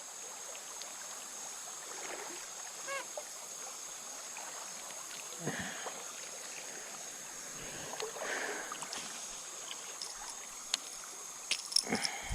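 Creek water running with a few faint splashes, over a steady high hiss.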